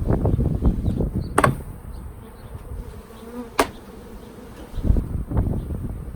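Honeybees buzzing around an open hive, a faint steady hum under repeated bursts of low rumble. Two sharp knocks sound, about one and a half and three and a half seconds in.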